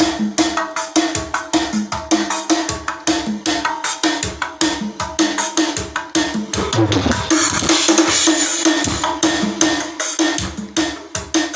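Music with a fast, even drum beat and heavy bass playing loud through a Sony GTR-33 mini hi-fi system's 8-inch speakers, turned up to show off its bass. About seven seconds in the beat breaks briefly for a falling bass sweep, then picks up again.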